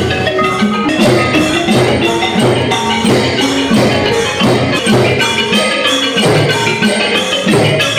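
Traditional Thai piphat ensemble music for a nang yai shadow-puppet dance: fast runs on xylophones and gong circles over a steady drumbeat.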